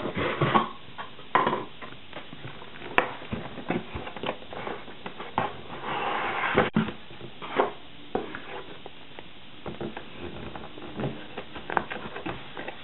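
Cardboard box and packaging being handled: irregular rustling, scraping and tapping of cardboard, paper and plastic, with a longer scraping rustle about six seconds in.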